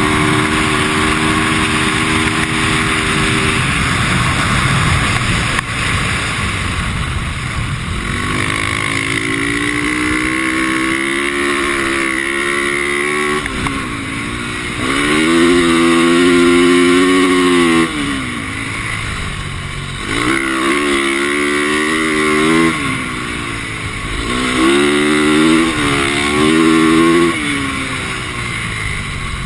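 Four-stroke single-cylinder 450cc dirt bike engine under riding load. Its pitch repeatedly climbs under throttle and drops back as the throttle is eased, about four times.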